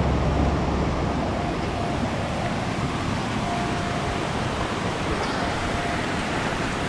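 Steady rush of a fast mountain stream: an even, unbroken hiss of running water.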